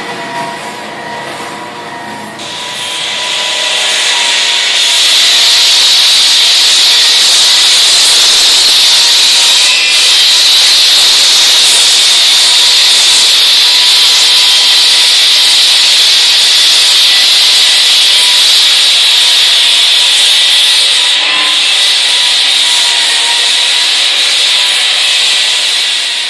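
Drum floor sander sanding a worn veneer parquet floor. It starts as a motor hum and, from about two to five seconds in, grows into a loud, steady sanding hiss as the drum bites into the wood.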